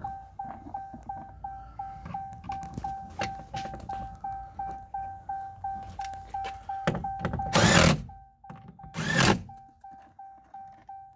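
Pickup truck's door-open warning chime ringing on and on in an even beat of about two chimes a second. About two thirds of the way through, two loud, short bursts of noise cut across it, a second and a half apart.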